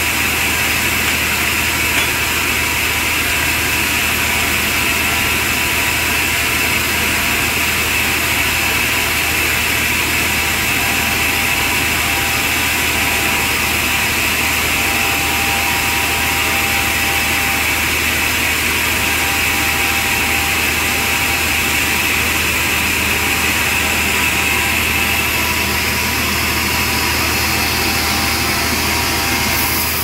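Vertical band sawmill running steadily, its blade sawing lengthwise through a large log as the log is fed past it, with a steady hiss over the machine's drone.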